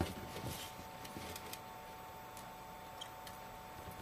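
Small clicks and taps of tools and small parts being handled while the front camera is fitted into an iPhone 5S screen assembly. There is a sharp click at the start, then a few fainter scattered ticks, over a steady faint tone.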